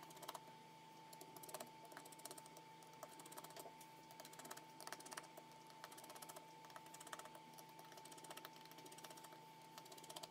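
Faint, irregular clicks and ticks of a precision screwdriver turning small screws out of a Samsung Galaxy Tab S2's frame, over a faint steady hum.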